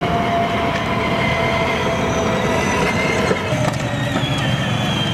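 Battery-powered ride-on toy car running along pavement: a steady whine from its electric motors and gearbox over the rumble of its hard plastic wheels on the rough surface. The rumble changes about three and a half seconds in.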